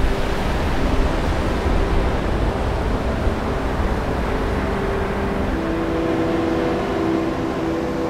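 Ocean surf breaking and washing up a sandy beach, a steady rushing noise. Soft sustained music notes come in underneath about halfway through.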